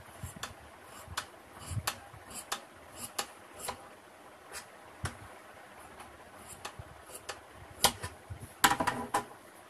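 Large tailor's shears cutting through fabric, the blades closing in irregular sharp snips, with a quick cluster of louder clicks near the end.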